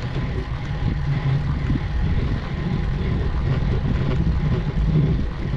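Steady low rumble of wind on the microphone with road noise from a road bike climbing on asphalt.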